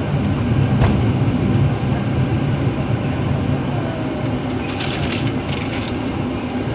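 Steady low rumble in an airliner's cockpit as it rolls on the ground after landing. A single thump comes about a second in, and a few sharp clicks around five seconds in.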